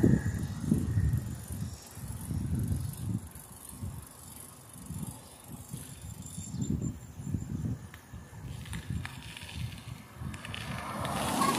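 Wind buffeting the microphone of a camera carried on a moving bicycle, in irregular gusts of rumble.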